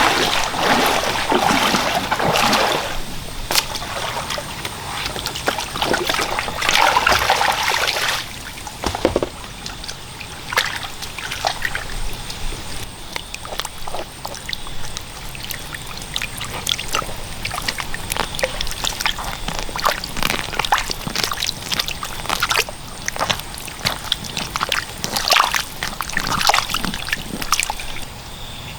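Water splashing and trickling, with two louder bouts of splashing near the start and about six to eight seconds in, then scattered small splashes and clicks.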